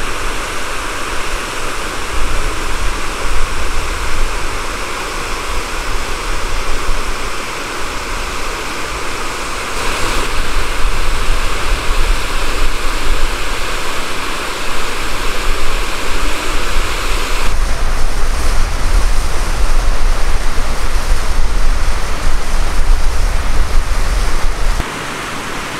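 Rushing water of a mountain river with waterfalls, a continuous loud hiss, over a fluctuating low rumble of wind on the microphone.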